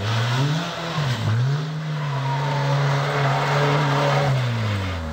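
A Renault 5 rally car's engine running hard under full throttle. The pitch drops briefly about a second in, then holds high and falls away near the end as the car passes.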